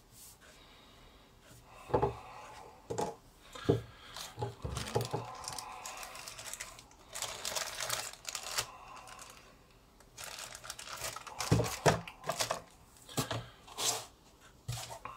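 Paper towels rustling and crinkling as they are handled on a desk. Several sharp knocks and clicks come in two clusters, early on and again near the end, as hard parts, among them a neodymium fishing magnet and its steel eyebolt, are set down.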